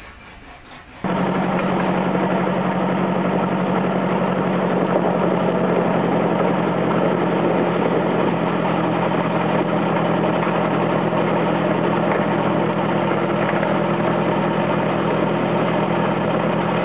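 Miniature train's engine running steadily as the train rides along, a constant hum with rumbling noise over it. It cuts in suddenly about a second in.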